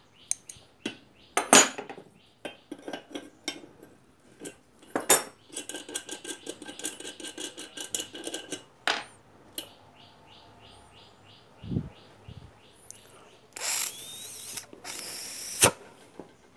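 Sharp clicks and metal clinks of small iron parts being handled while its valve is checked, with a quick rattling run lasting about three seconds midway and then a run of light, evenly spaced ticks. Near the end come two short bursts of hissing noise, the second ending in a loud click.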